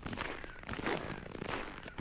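Footsteps crunching and squeaking in dry, frozen snow at about −15 °C, a regular series of short crunches at walking pace.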